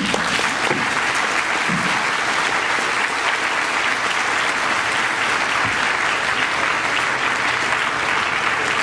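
Audience applauding, a steady unbroken wash of many people clapping.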